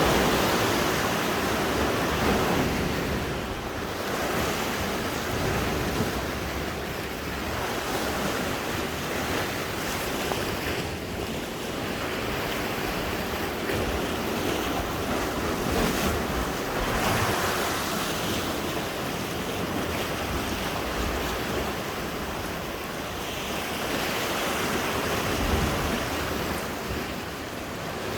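Sea waves washing against the shore, the rush swelling and ebbing every few seconds, with wind blowing across the microphone.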